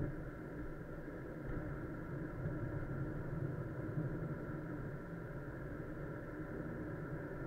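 Car running: a steady engine hum with road noise, swelling slightly a couple of seconds in.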